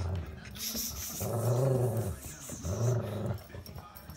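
Dog growling in play while tugging at a child's hood: a short growl, then two long grumbling growls.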